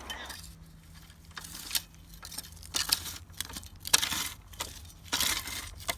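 Hoss single wheel hoe pushed forward along a compacted garden path, its 6-inch oscillating hoe blade scraping and crunching through the packed soil in several irregular strokes.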